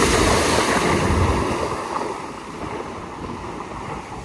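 Land Rover Discovery 5 driving past through standing water and mud, its tyres splashing with a low rumble underneath. It is loudest in the first second and a half, then fades as the car pulls away.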